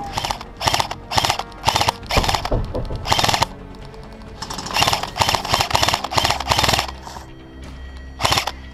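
Airsoft electric rifle (KWA SR10) firing repeated short bursts, each a quick rattle of shots. There is a run of bursts about half a second apart in the first two seconds, another cluster around five to seven seconds in, and one more near the end. Steady tones like music sit underneath.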